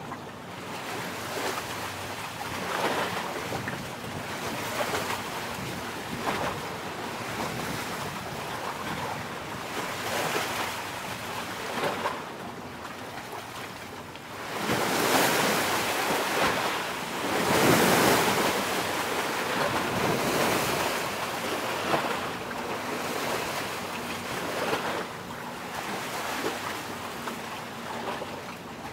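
Small waves washing onto the shore in slow surges every few seconds, with wind noise on the microphone; the biggest washes come a little past halfway.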